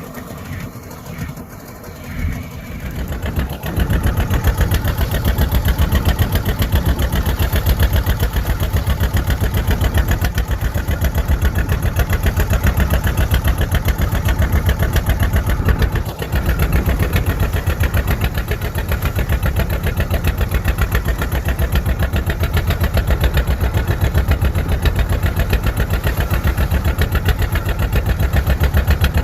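Fishing boat's engine starting up about three and a half seconds in, then running steadily with a fast, even pulse.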